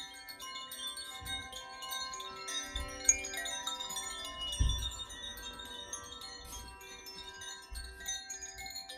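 Koshi chimes gently swung, their metal rods striking the clapper in a steady tinkling and ringing on with many overlapping sustained tones. A few soft low thumps come in under the chimes about a second, three, four and a half, and eight seconds in.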